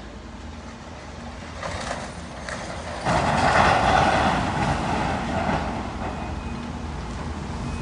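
A hydraulic excavator tearing into a wooden mill building. A couple of sharp cracks come first, then about three seconds in a loud crash of breaking and falling debris that dies away over a few seconds, over the steady low hum of the diesel engine.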